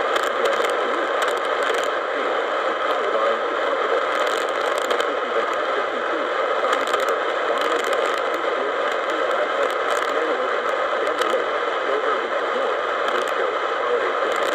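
Radio receiver static between broadcasts: a steady hiss with scattered crackles.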